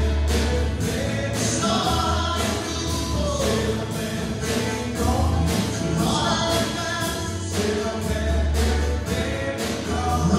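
Live song from a small band: voices singing over keyboard, guitar and drum kit, with a steady beat.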